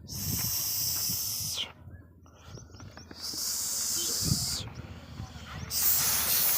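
Three bursts of hissing, each about a second and a half long, starting and stopping sharply, like a sprayer or air jet being squeezed on and off.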